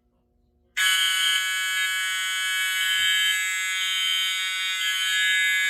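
Fire alarm horn sounding a loud, steady buzzing tone that starts abruptly about a second in and holds without pulsing.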